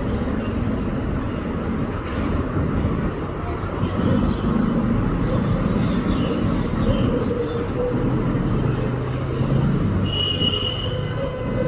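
Steady, loud low rumbling of a vehicle in motion, with a brief high squeal about ten seconds in.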